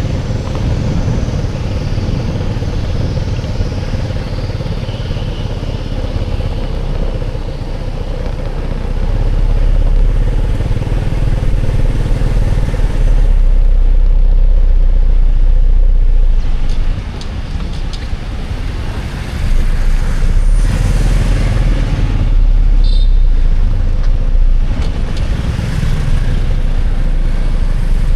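A road vehicle running, with a heavy low rumble that swells louder twice and eases between.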